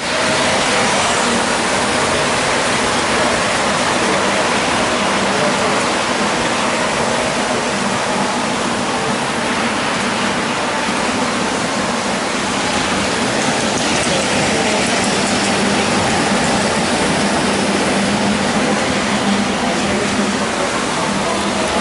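Steady rushing background noise with a low hum under it, the running sound of a large indoor model railroad hall.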